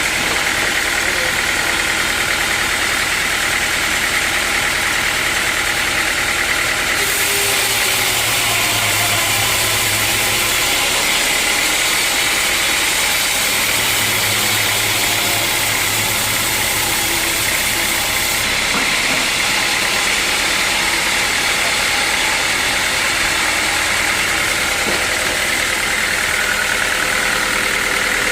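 Sawmill machinery running steadily with a dense mechanical noise. Between about 7 and 18 seconds in the sound turns brighter and a low hum joins it, then it settles back.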